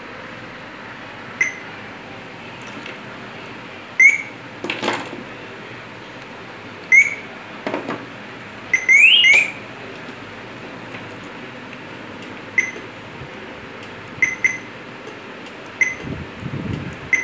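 Short electronic beeps from a car central-locking module on a bench tester, sounding singly and in pairs as the lock and unlock signals come through, with one rising siren-like chirp about nine seconds in. A couple of clicks come between the beeps.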